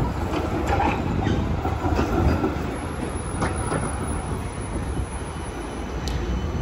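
A city tram running along the street: a steady rumble of wheels on rails, with a faint high-pitched squeal partway through.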